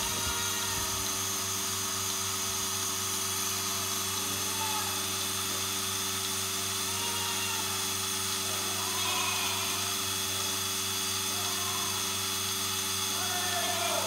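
Portable milking machine's motor and vacuum pump running with a steady hum and whine.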